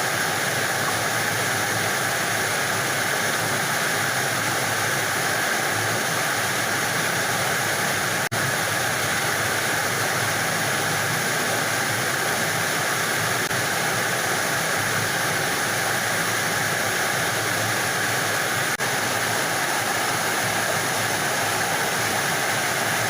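Waterfall: a steady rush of falling water, with two momentary dropouts about eight and nineteen seconds in.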